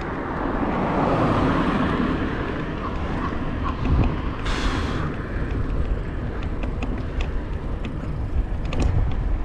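Wind and road noise from a moving bicycle, with traffic; the noise swells about a second in, and a short sharp hiss comes about halfway through.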